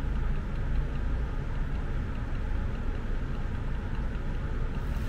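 Steady low background rumble of room noise, with no distinct events.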